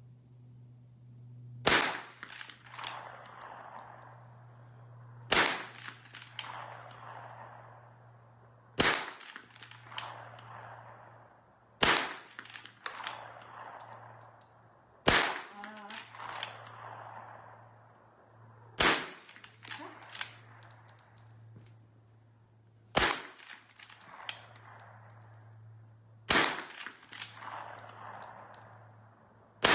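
Gunshots at a firing range: eight loud shots about every three to four seconds, each followed by a ringing echo and a few fainter cracks, over a steady low hum.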